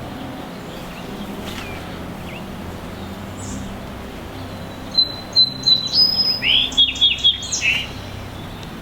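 Songbird singing a quick run of about ten loud chirps and down-slurred whistled notes, starting about five seconds in and lasting about three seconds, over a steady low background hum.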